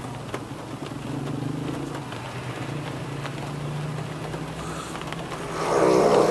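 A man with untreated sleep apnea snoring: a low, fluttering snore over steady rain hiss, then a much louder snore near the end.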